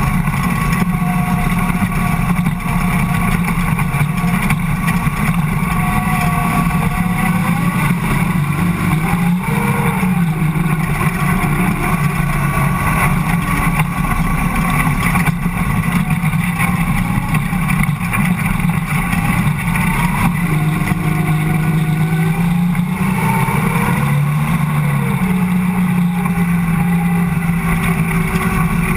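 Ford Cortina speedway race car's engine running hard under load, heard from inside the cockpit. Its pitch dips and climbs again a few times as the throttle is lifted and reapplied through the turns.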